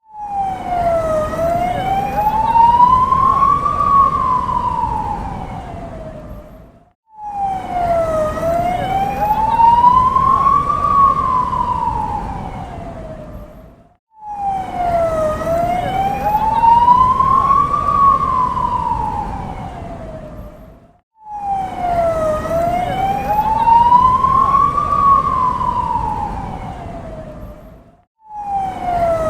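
Ambulance siren in a slow wail, sweeping up and back down over a few seconds, above a rumble of city traffic. The same pass repeats four times; each swells, fades away and cuts off abruptly before the next begins.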